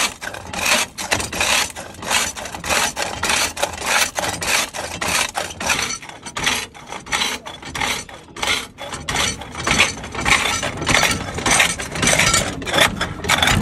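Rock samples being crushed in a hand-lever rock crusher: rapid, irregular gritty crunching and grinding of stone under the steel lever, with clinks of rock chips.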